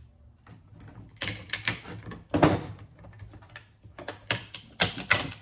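Sharp clicks and cracks as transistors (MOSFETs) are cut and snapped off a circuit board, in several clusters with the loudest crack about halfway through.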